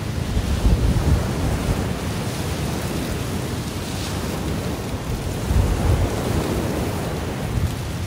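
Ocean waves washing onto the shore, with wind buffeting a phone's microphone. A low rumble swells twice, about half a second in and again around six seconds.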